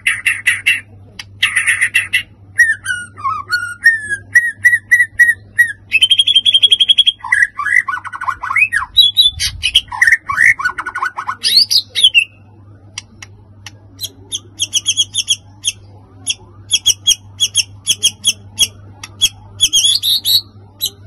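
White-rumped shama singing a long, varied song: buzzy rattles and trills, rising slurred whistles in the middle, then after a short pause a fast run of sharp repeated chips.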